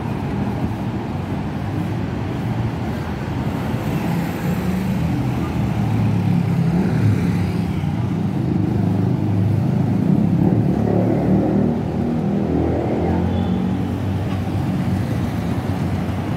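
Road traffic of cars and motorcycles running by, a steady engine rumble that grows louder midway through and eases off again near the end.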